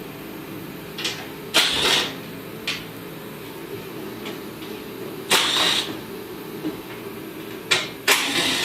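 Steady hum of a second heater running, with six short, noisy bursts of handling sound over it, the loudest about one and a half and five and a half seconds in.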